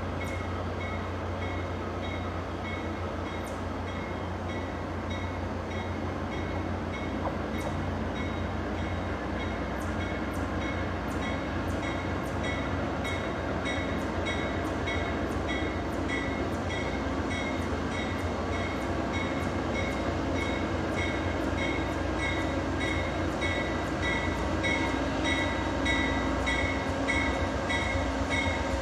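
Amtrak Downeaster train led by a GE P42DC diesel locomotive approaching at low speed, with a steady low engine rumble that grows slightly louder. A bell rings steadily about twice a second.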